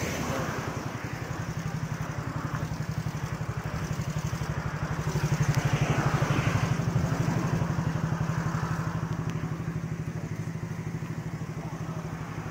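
Motorcycle engine running with a steady, rapidly pulsing low throb that grows louder about five and a half seconds in.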